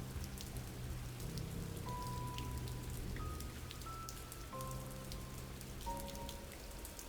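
Steady rain, with scattered sharp drop ticks, under soft ambient music of slow held notes that change every second or two.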